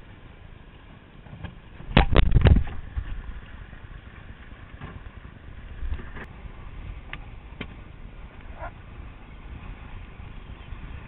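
Knocks and thumps of a handheld action camera being moved about and bumped against boat fittings, with a cluster of loud knocks about two seconds in and a few lighter ticks later. Under them is a steady low rumble.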